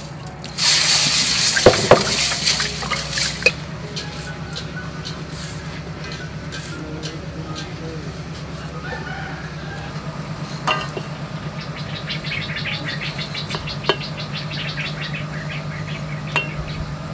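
Salt poured from a glass jar into a metal basin of water, a hiss lasting a few seconds, followed by a small knife peeling green bananas, with fast scraping and a few sharp clicks, over a steady low hum.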